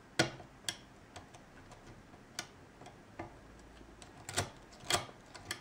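Lock pick working the pins of an ASSA oval pin-tumbler cylinder: irregular sharp metal clicks, a loud one about a quarter second in and a cluster near the end.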